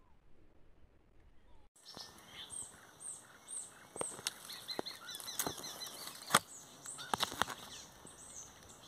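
Dry leaf litter crackling and rustling in sharp clicks, with repeated high bird chirps over it, starting about two seconds in after near quiet.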